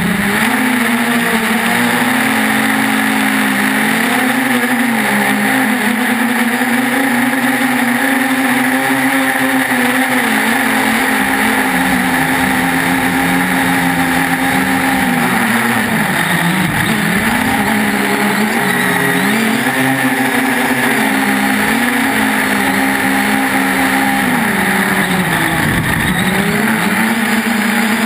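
3DR Iris+ quadcopter's four brushless motors and propellers humming over a steady hiss, the pitch dipping and rising again several times as the throttle changes in flight.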